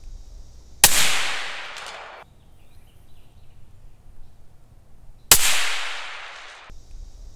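Two suppressed rifle shots from a .308 bolt-action rifle with a 20-inch barrel, about four and a half seconds apart, each a sharp crack followed by an echo that dies away over about a second and a half.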